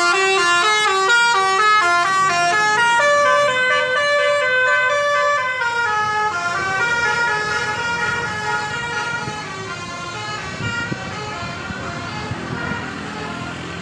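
Indonesian bus telolet horn of the basuri kind playing a fast melody of short notes stepping up and down in pitch. The tune is loud for about the first six seconds, then carries on fainter over engine and road noise.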